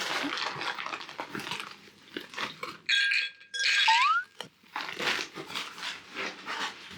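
A dog chewing and crunching on something, in a run of short crunches, with a brief high-pitched rising sound about halfway through.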